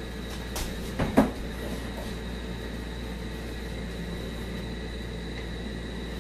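Dishes clattering twice in quick succession about a second in, as crockery is set down in the kitchen, over a steady background hum.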